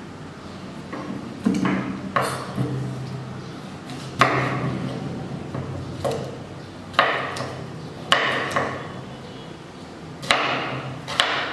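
Kitchen knife chopping down onto a wooden cutting board while dicing a vegetable. About nine sharp knocks come at uneven intervals.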